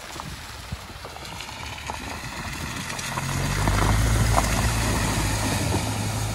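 Nissan X-Trail turbo-diesel SUV driving past on a muddy track, its engine drone and tyres splashing through puddles and slush. It grows louder from about three seconds in, is loudest as it passes a second later, then fades slowly as it pulls away.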